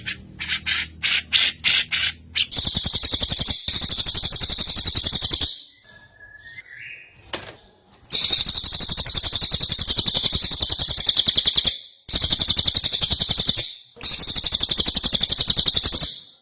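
Songbird song from a masteran recording of Javan cucak jenggot combined with cililin. There are a few short chirps, then long, very rapid, high-pitched trilling phrases repeated three or four times with brief pauses between them.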